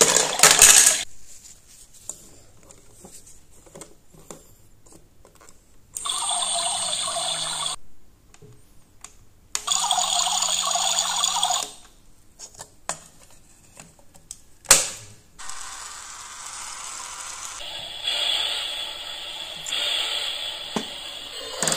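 Battery-powered toy kitchen appliances: clicks of plastic parts being handled, then two runs of about two seconds each from a toy coffee maker's small electric pump as its button is pressed, a sharp click, and a softer steady sound from the lit toy stove near the end.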